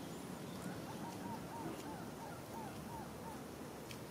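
An animal chirping: a quick run of about ten short, arching chirps, three to four a second, over steady outdoor background noise.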